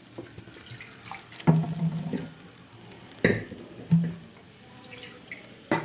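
Steel spoon stirring runny cooked toor dal in a metal kadhai: liquid sloshing, with a few sharp knocks and scrapes of the spoon against the pan.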